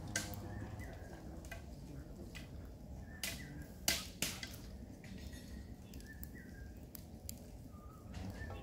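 Eggs clicking and knocking against one another as they are set by hand into a large iron kadai of water, a dozen or so sharp irregular clicks, the loudest a cluster about four seconds in. Birds chirp faintly in the background over a low steady rumble.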